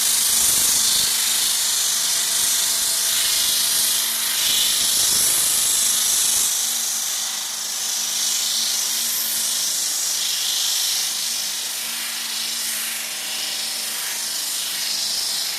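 Parquet floor-sanding machine with dust extraction running steadily: a loud high hiss over a steady hum. The low rumble drops away about six seconds in.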